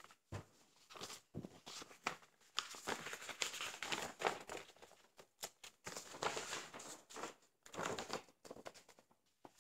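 Large paper poster rustling and crinkling in irregular bursts as it is unfolded and handled.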